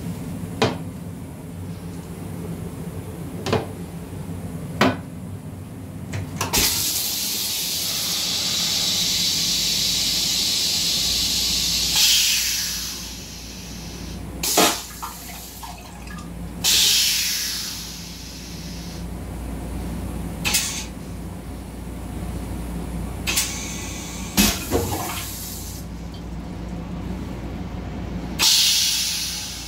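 M7 railcar toilet flushing: a few sharp clicks from the seat lid being lifted, then a hiss of rinse water spraying into the stainless bowl for about five seconds, followed by several shorter sprays. A low rumble runs beneath the spraying for much of the cycle, and one more spray comes near the end.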